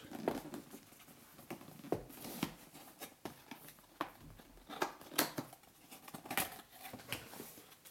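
Hands handling and opening a cardboard box: a scatter of light taps, scrapes and rustles of cardboard.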